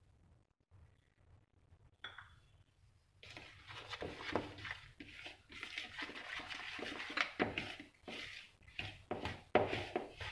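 A metal spoon stirring and scraping flour, cocoa and wet ingredients into cake batter in a plastic bowl. Irregular scrapes and clicks start about three seconds in, after near silence.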